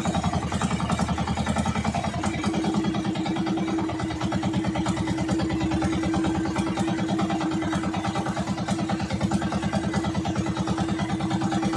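Small engine of an outrigger fishing boat running steadily under way, with a fast, even pulsing throb.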